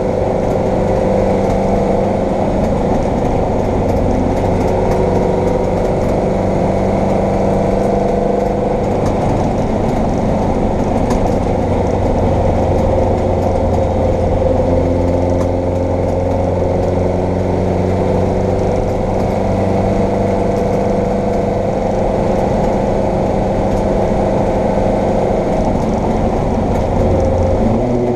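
Vauxhall Firenza saloon race car engine under load, heard from inside the cockpit, holding a loud, fairly steady note. The note shifts about halfway through and again near the end.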